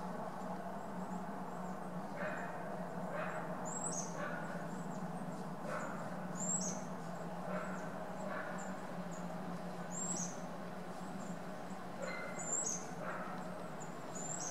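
Small wild bird calling: short, very high chirps that slide downward, repeated about every two to three seconds, with softer lower notes between them. A steady low hum runs underneath.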